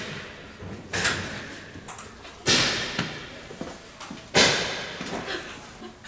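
Three sudden impacts, like slams or thuds, each trailing off over about a second; the second and third are the loudest.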